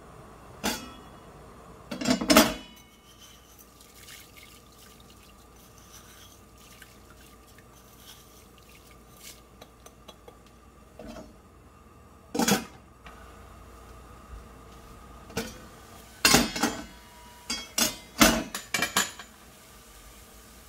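Stainless steel stockpot and its lid clanking: scattered sharp metallic knocks and clatters, the loudest about two seconds in and a quick cluster near the end, over a faint steady hum.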